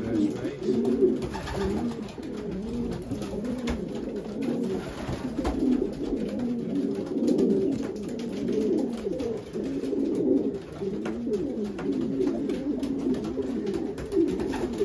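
Racing pigeon cocks cooing in their nest boxes, many rolling coos overlapping without a break, the cocks' display on being shown their hens.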